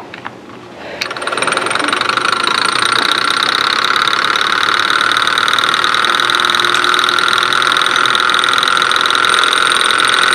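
Small hot-air Stirling engine running, its flywheel spinning and turning a generator through a pulley: a steady mechanical whir with a light rattle. It starts suddenly about a second in and settles to a steady speed by about two seconds.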